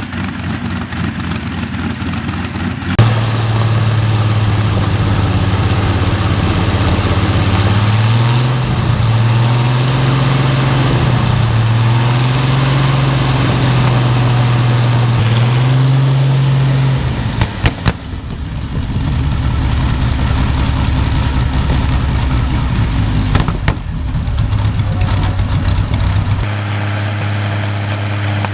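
Rolls-Royce Second World War bomber aero engine running on a display stand: the engine note jumps up sharply about three seconds in, then the revs rise and fall several times. Near the middle a few sharp cracks come as the revs drop, after which it settles back to a steady, lower run.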